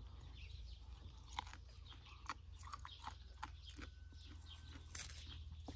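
A knife peeling and cutting the fibrous skin off a fresh, crisp plant stalk: faint, scattered small clicks and crackles.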